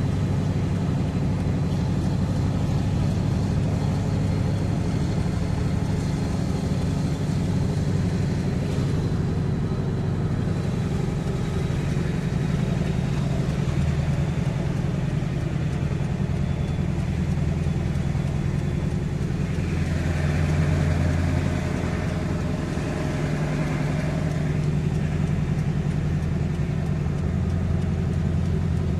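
A towing vehicle's engine running steadily while under way, a continuous low hum. It grows a little louder about twenty seconds in.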